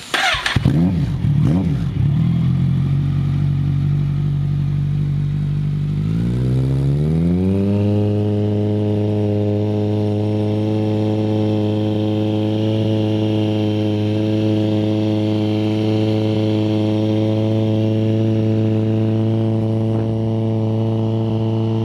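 Kawasaki Z1000's inline-four engine running through an aftermarket sport exhaust. It sets in suddenly at the start and runs at a low idle for a few seconds. Then it rises smoothly over about two seconds and holds a steady higher engine speed.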